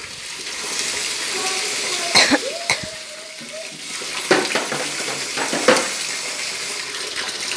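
Water sloshing and splashing as a plastic dipper scoops from a bucket and water is rubbed through a wet Pomeranian's coat, with a few sharp knocks and splashes.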